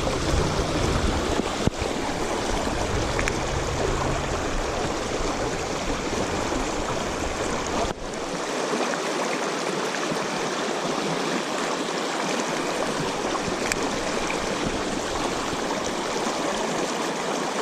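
River water running steadily over rocks in a shallow trout stream, a continuous even rush. A low rumble underneath stops abruptly about eight seconds in.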